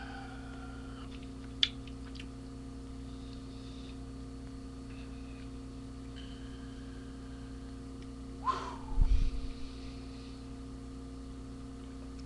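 Steady electrical mains hum, with a single sharp click about one and a half seconds in and a short, loud, low rumble about nine seconds in.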